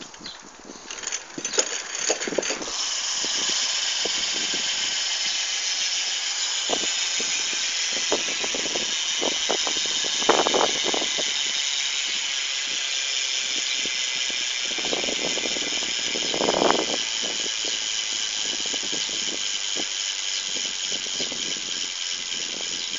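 Halo Combat single-speed wheel's freehub freewheeling: a few clicks as the wheel is set spinning, then a steady high-pitched ratcheting buzz from the pawls as it coasts, slowly fading.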